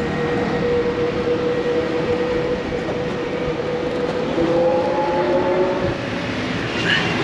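Ride in a Kathmandu electric three-wheeler (Safa tempo): a steady electric motor whine over road and wind noise. Two more whining tones join briefly about two-thirds of the way through.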